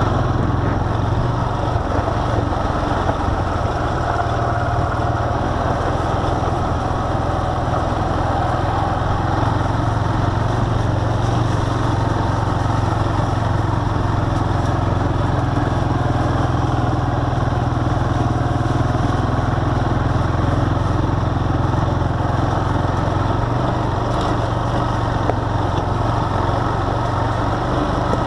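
ATV engine running steadily while riding along a dirt trail, a constant low drone with no change in revs.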